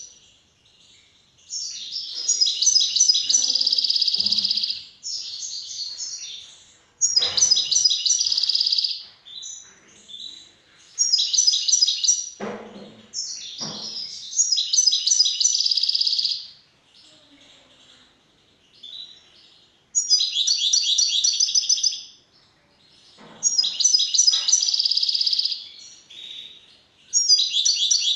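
Caged European goldfinch singing: about eight fast, twittering high-pitched phrases, each lasting a second or more, with short pauses between them. A few soft knocks sound between phrases.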